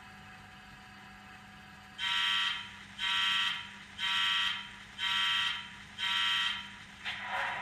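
Bachmann Class 66 model locomotive's DCC sound decoder playing its start-up sequence: five evenly spaced buzzer beeps, about one a second, over a faint steady hum. A rougher, noisier sound comes in near the end, likely the diesel engine sound starting up.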